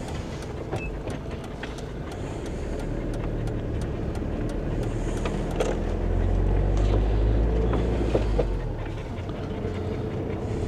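Camping-car being driven slowly, with engine and road noise heard from inside the cab. The low rumble swells for a couple of seconds just past the middle, and small clicks and rattles are scattered through it.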